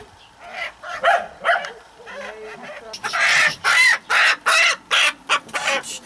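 Domestic chickens clucking, then from about halfway a loud run of harsh, repeated squawks, about two or three a second: the alarm call of a hen being caught by hand.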